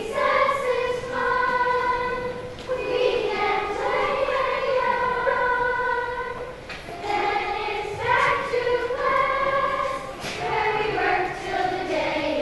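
Children's choir singing a song, long held notes in phrases of a few seconds with short breaths between them.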